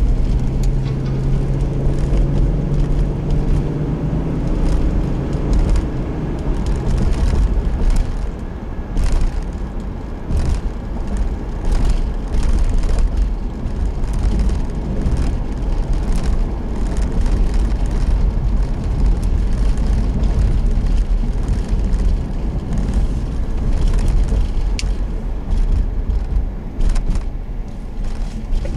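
Fire department vehicle driving, engine running with its pitch rising over the first few seconds as it accelerates, and frequent knocks and rattles from the road.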